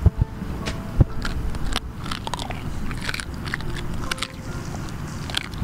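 Dogs crunching and gnawing on bones, a run of irregular sharp cracks.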